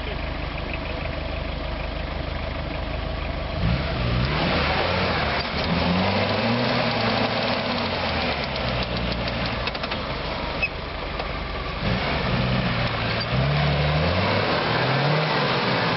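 Off-road 4x4 engines working through a deep ditch. The first few seconds hold a steady low engine drone. After that, a Suzuki Vitara's engine revs up and down again and again as it noses into the ditch and climbs back out.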